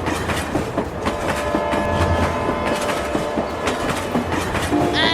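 Train wheels clacking rapidly and steadily over rail joints, with a steady held horn-like tone sounding for about two and a half seconds in the middle.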